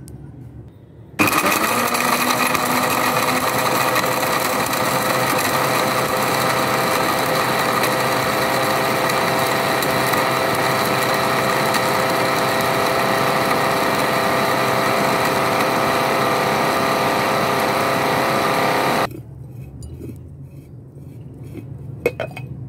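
Electric mixer grinder running at high speed, grinding whole almonds into powder in its jar: a steady loud motor whine that starts about a second in and cuts off abruptly about 19 seconds in.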